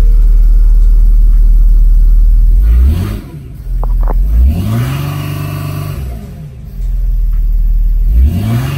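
Mercedes CLK 320 CDI's 3.0 V6 common-rail diesel (OM642) idling, then revved up three times, heard from inside the cabin. The revs rise and then hold flat at a ceiling instead of climbing freely: the engine is in limp mode, limited to about 3000 rpm by fault 2513-1 on the intake port shut-off (swirl flap) motor.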